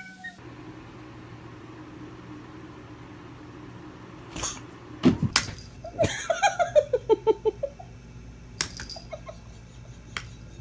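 A small electric device hums steadily, with a few sharp knocks and, about six seconds in, a quick falling run of short vocal sounds.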